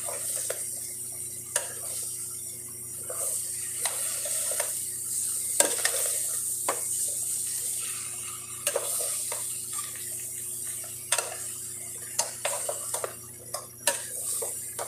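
Long metal spoon stirring thick chicken-blood stew (dinuguan) in a large metal pot. It clinks and scrapes against the pot's sides many times over a steady hiss from the simmering pot.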